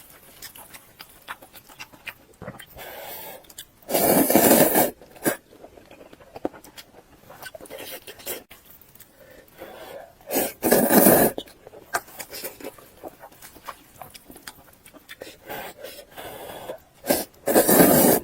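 Close-miked eating sounds: wet chewing and mouth clicks, broken three times by a loud noisy burst about a second long, as of a big crunching bite or slurp.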